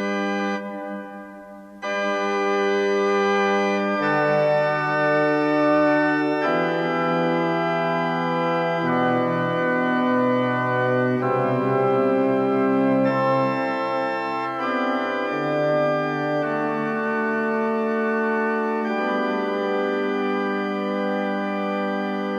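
Organ playing slow, held chords that change every two seconds or so, after a short drop-out about a second in.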